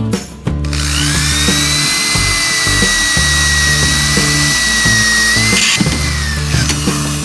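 A handheld power tool spins up about half a second in and runs with a steady high whine and hiss, then stops near the end. Background music with a steady beat plays underneath.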